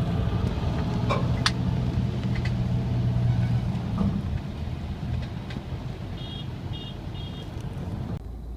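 Road traffic: a vehicle engine hums steadily, with scattered clicks and three short high beeps about two-thirds of the way in.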